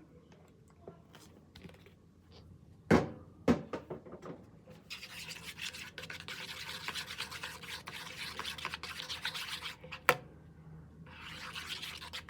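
Homemade glue-and-shampoo slime being stirred in a container: two knocks about three seconds in, then several seconds of rapid, wet scraping and stirring, broken by a sharp knock near the end before the stirring starts again.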